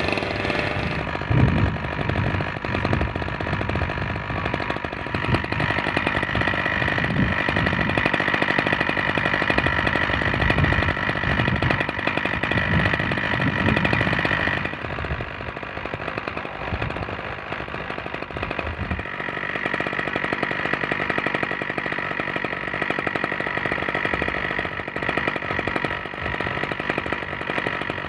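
An engine idling steadily, with dull thumps of hand digging and scraping in the trench through the first two-thirds.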